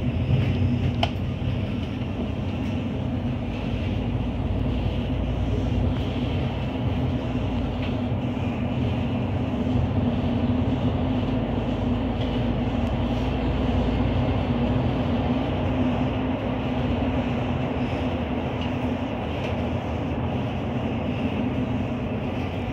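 Inside a MAN Lion's City Efficient Hybrid city bus on the move: a steady hum from the drivetrain over road and tyre noise.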